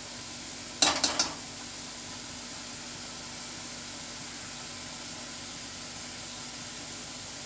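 Onion paste sizzling steadily in an iron karahi, with three quick metal knocks about a second in from the steel ladle striking the pan.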